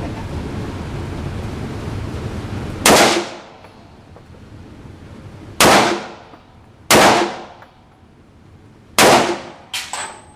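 AR-15 rifle fired four times, each a sharp report with a short ringing tail, spaced one to three seconds apart, followed by two fainter bangs near the end.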